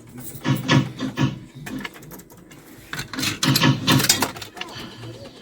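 Slot machine sounds in an amusement arcade: irregular bursts of clattering mechanism and short electronic tones, with the loudest stretches about half a second in and again from about three to four seconds in.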